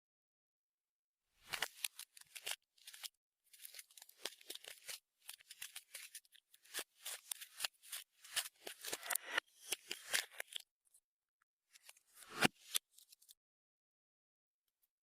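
Clear slime being worked by hand, giving short sticky crackles and clicks in irregular runs, with a louder squelch about twelve seconds in.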